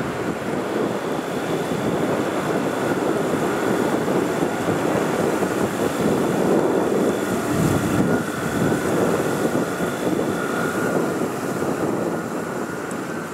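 Jet engines of a four-engine Boeing 747-400 freighter running at taxi power: a steady rumble with a thin high whine over it, growing louder toward the middle and easing off near the end.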